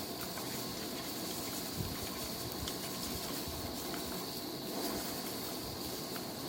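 Steady sizzling hiss with scattered small crackles, as of food frying in a pan, over a faint steady high-pitched tone.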